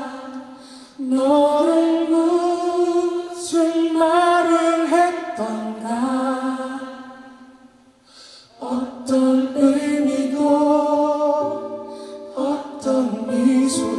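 A Korean pop ballad played back through ScanSonic HD MB-2.5 floor-standing speakers. The melody line is made of long held notes. Around the middle it fades almost to nothing, then comes back.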